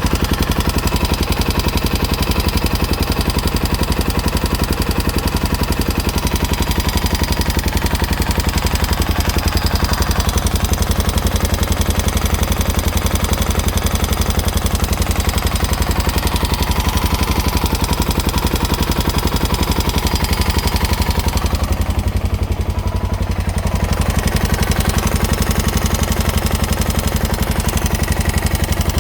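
Honda Dominator NX650's single-cylinder engine idling with a clicking from the cam chain area that remains after a new cam chain, tensioner, cam and rocker arms; the owner wonders whether the cam chain guides are the cause. The higher part of the sound thins out briefly about three-quarters of the way through.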